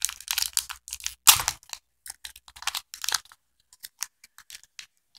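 Close-up handling noise: irregular crinkles, rustles and small clicks as hands unwind a coiled pair of white wired earphones, loudest about a second in.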